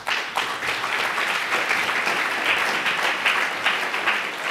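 Audience applauding, many people clapping together.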